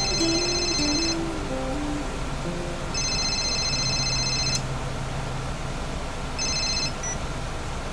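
An electronic telephone ringing in repeated high bursts about three seconds apart, the third ring cut short near the end as the call is answered. Soft background music with a few low notes plays under the first ring.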